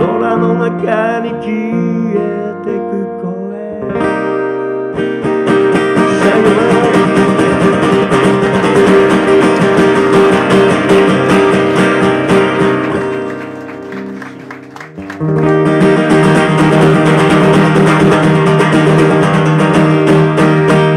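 Acoustic guitar strummed with a bass guitar underneath, played live. The playing is light for the first few seconds, breaks into full strumming about four seconds in, drops away briefly near the middle and comes back in hard.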